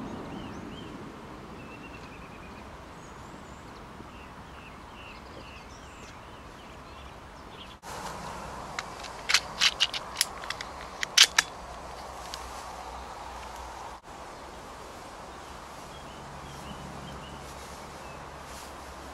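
Faint birdsong outdoors, then a quick run of about ten sharp clicks over two seconds, the loudest near the end, followed by faint birdsong again.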